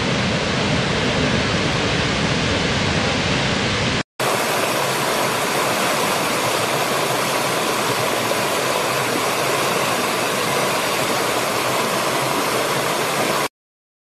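Roar of a large waterfall, a heavy, even rush with a deep rumble, which cuts off about four seconds in. After a brief gap comes a shallow stream rushing and splashing over rocks, a brighter hiss with little rumble, which stops suddenly near the end.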